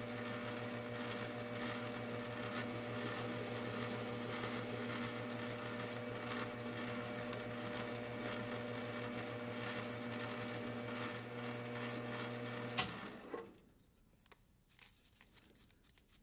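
Metal lathe running steadily with a motor hum while a parting blade takes light step cuts in the spinning workpiece. It cuts off abruptly about thirteen seconds in, leaving near silence with a few faint ticks.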